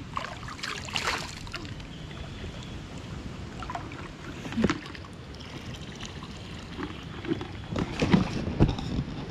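Muddy river water sloshing and splashing around people wading waist-deep. There are louder splashes about a second in, around the middle, and several near the end.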